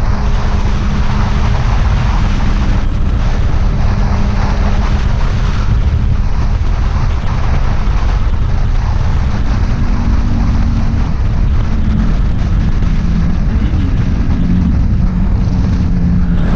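Motorcycle engine running at a steady cruising pace under heavy wind rush on the microphone, its note shifting slightly in the second half.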